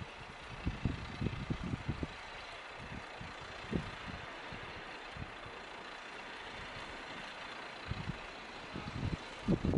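Diesel railcar standing with its engine idling, a steady hum, broken by irregular low thumps, several in the first two seconds and a cluster near the end.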